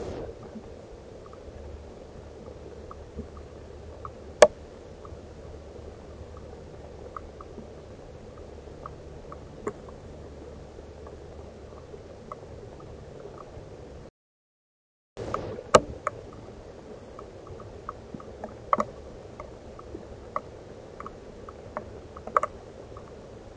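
Trail-camera audio: steady microphone hiss with scattered soft ticks and clicks, and a sharp click about four seconds in. About a second of dead silence a little past halfway, after which the hiss returns with more frequent clicks.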